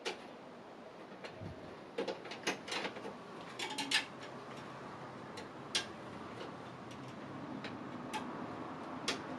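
Irregular sharp clicks and light taps of computer parts being handled and fitted during a PC build. They come in a cluster of several a couple of seconds in, then singly every few seconds.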